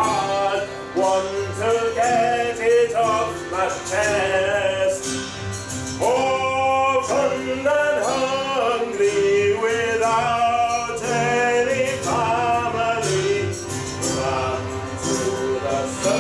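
A song with a man singing over instrumental accompaniment, the voice holding long notes.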